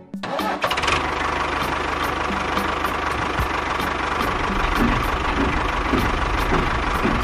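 Tractor engine running steadily, coming in just after the start.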